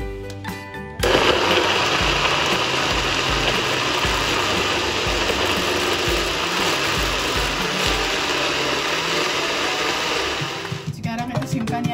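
Electric blender running steadily, switched on about a second in and winding down near the end.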